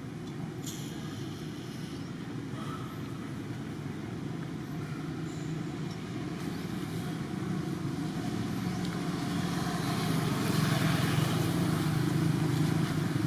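A motor's steady hum that grows gradually louder, with a hiss rising over it in the second half.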